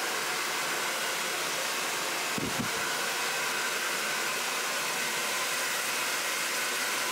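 Handheld hair dryer running steadily, blowing air through wet hair.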